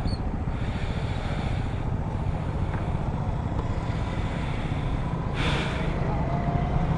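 Honda Supra GTR 150 single-cylinder motorcycle engine running under way, heard over steady wind rumble on the rider's microphone; the engine note slowly rises in pitch near the end.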